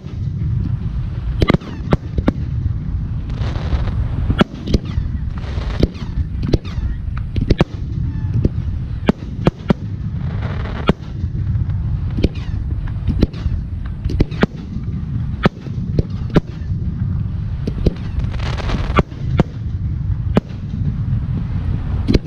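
Fireworks display: aerial shells going off in quick, irregular succession, dozens of sharp bangs over a continuous low rumble, with a few longer crackling stretches.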